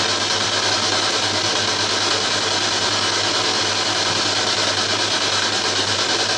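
Ghost box (spirit box) radio sweeping through stations, giving a loud, steady hiss of static with a low hum underneath.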